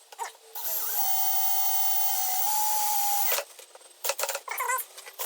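Power drill spinning for about three seconds as it bores the camera hole in the trunk's chrome lip, its whine stepping up slightly in pitch near the end before stopping. A run of short clicks and knocks follows.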